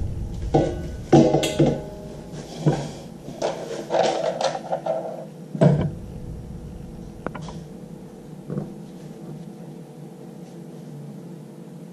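Metal knocks and rattles from the Y3700 AHL's head housing and chrome rim being handled on its pleated cartridge filter, with a louder thump about six seconds in, then only a couple of faint clicks.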